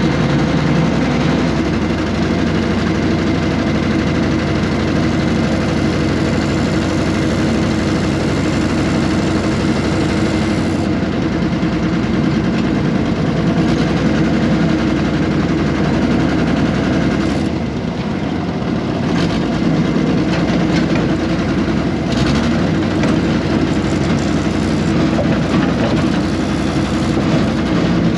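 Air-cooled Deutz diesel engine of a 1970s RM.80 excavator running steadily, dipping slightly in loudness for a moment about two-thirds of the way through.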